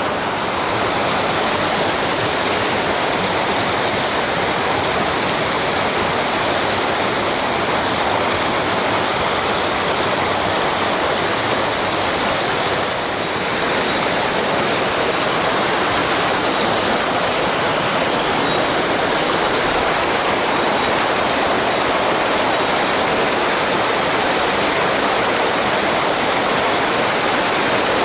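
Loud, steady rushing of a mountain stream's water tumbling over rocks, with a brief slight dip about halfway through.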